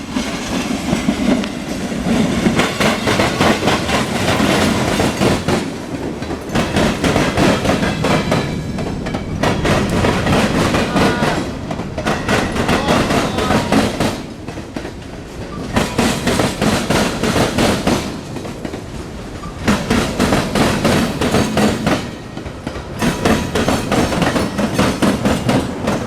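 CSX local freight train's cars rolling past in reverse, wheels clattering over rail joints. The clatter comes in loud stretches broken by short lulls every few seconds.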